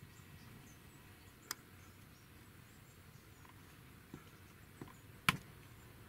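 Quiet outdoor background with faint high chirps and a few sharp clicks, the loudest about five seconds in.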